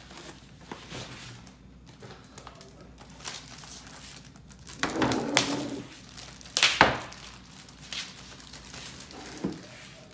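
Plastic wrapping crinkling and rustling as a laptop in a plastic sleeve is lifted out of its cardboard box and slid out of the sleeve. A sharp knock about two-thirds of the way through is the loudest sound.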